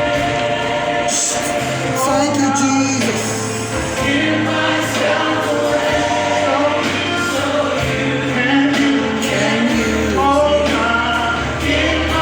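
Gospel worship music: a choir singing over a band, with a held bass line.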